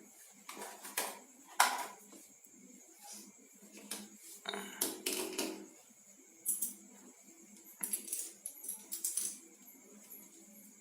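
Irregular clicks and light clatter of small hard objects being handled, with a brief scraping stretch about halfway through.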